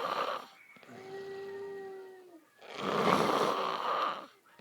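A drunk, sleeping man snoring heavily: loud, rasping in-breath snores about three seconds apart, with a quieter, steady-pitched out-breath between them that drops in pitch at its end.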